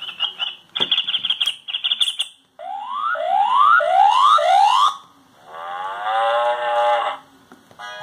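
Mitsubishi M342i mobile phone playing short previews of its built-in ringtones one after another as the list is scrolled. First comes a choppy run of high beeps, then four rising electronic sweeps, then one long buzzy tone that stops about a second before the end.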